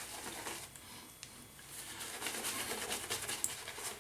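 Shaving brush loaded with lather scrubbing over a week's stubble: faint, uneven swishing and squishing of wet bristles and foam.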